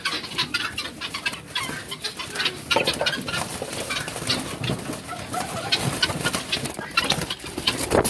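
Helmeted guineafowl and chickens squawking and cackling in alarm with repeated bursts of wing-flapping and scuffling, as they are chased and caught by hand.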